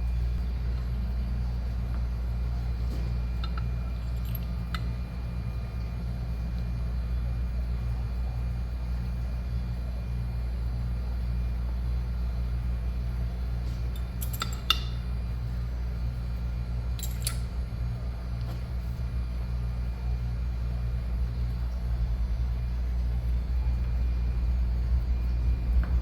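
Steady low hum with a few light metallic clinks and ticks of small engine parts being handled during reassembly of a two-stroke dirt bike's crankcase and gearbox, the sharpest two about halfway through.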